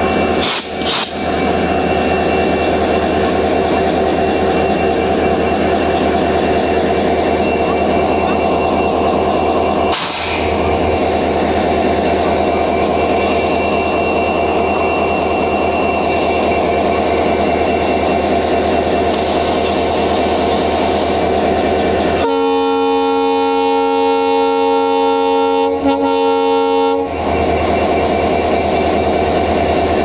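WDP4D diesel locomotive idling steadily, then sounding one long horn blast of nearly five seconds about three-quarters of the way in, a multi-tone chord.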